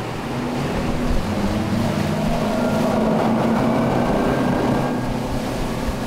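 Twin outboard motors on a boat running at speed, a steady engine drone over rushing water and wake.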